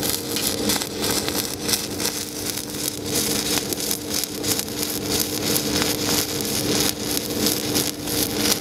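Pulsed stick-welding arc from an HTP Invertig 221 inverter welder burning 3/32-inch 7018 rod on 14-gauge steel at 90 amps: a steady crackle and sizzle that swells and dips over and over with the pulse, over a steady hum.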